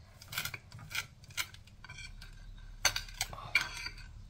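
Table knife spreading cream cheese on toast: short scraping strokes, a cluster in the first second and a half, then more after a brief pause.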